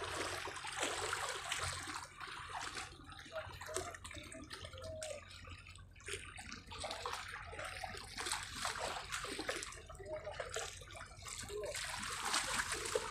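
Small sea waves lapping and sloshing against the rocks of a breakwater, coming and going unevenly.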